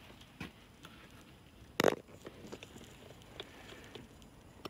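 Faint handling and rustling, broken by a single sharp tap about two seconds in.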